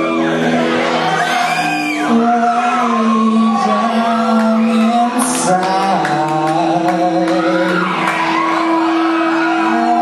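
Live rock band playing: electric guitars and drums with a singer's voice over them, sustained notes and sliding vocal lines throughout.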